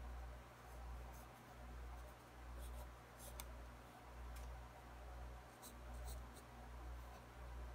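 Pencil scratching on sketchbook paper in short, light strokes, with a sharper scratch a little over three seconds in. Under it runs a faint low rumble that swells and fades about once a second.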